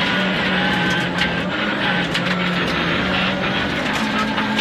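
Peugeot 106 rally car's engine, heard from inside the cabin, running hard at fairly steady high revs, dipping slightly midway and climbing again near the end. Scattered sharp ticks of gravel hitting the car come through over the engine.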